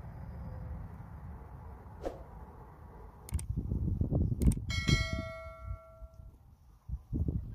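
Subscribe-button animation sound effect: a couple of sharp clicks about three and a half seconds in, then a bell ding that rings out for about a second and a half. A low rumbling noise runs underneath, loudest around the clicks and the ding.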